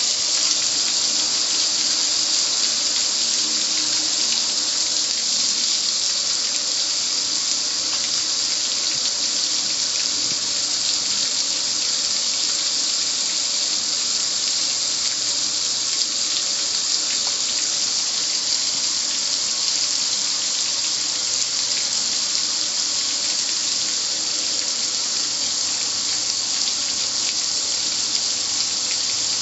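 Water spraying steadily at a car wash, an even hiss with no breaks.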